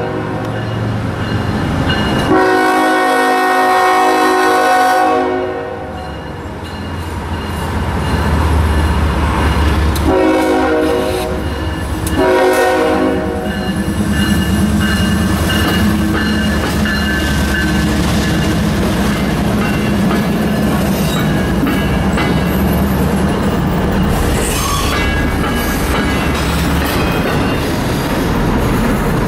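CSX freight locomotives (GE ES44AH 996 leading, SD70AH-T4 8905 trailing) sounding their air horn for a grade crossing: a long blast about two seconds in, then another long blast about ten seconds in followed by a short one. The diesel engines then rumble past, followed by double-stack intermodal cars rolling by with the clickety-clack of their wheels.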